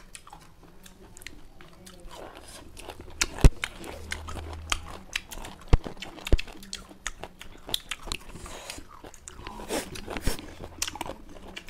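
People biting and chewing raw lemon slices close to the microphone: wet mouth sounds with crunches and sharp smacks scattered throughout, the loudest about three and a half seconds in.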